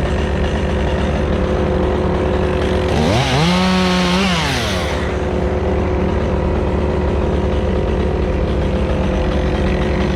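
Stihl chainsaw revved up once about three seconds in, its pitch rising, holding for about a second and falling back to idle. A steady loud engine drone runs underneath throughout.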